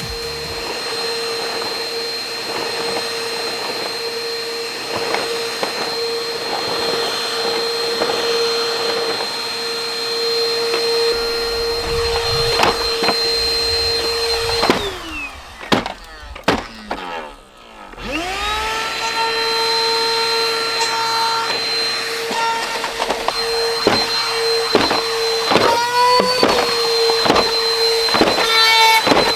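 Bissell PowerForce Helix upright vacuum cleaner running with a steady whine and scattered knocks and rattles. About fifteen seconds in it is switched off and winds down with a falling pitch. A few seconds later it is switched back on and spins back up to speed with a rising pitch.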